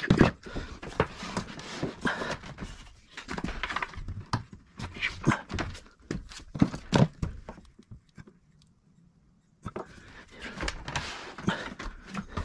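Irregular knocks, thuds and clatter from hands-on fitting work, with a pause of near silence for about two seconds past the middle.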